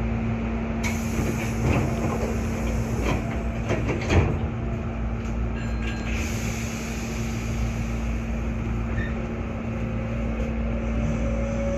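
Hankyu 8300 series electric train standing at a platform with a steady hum, a few clunks and a louder thump about four seconds in, then moving off, its traction motor's tone slowly rising near the end.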